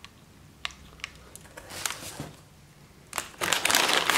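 Light clicks of brass shells being handled at a gas revolver's open cylinder, then a loud crackling rustle of packaging such as bubble wrap about three and a half seconds in.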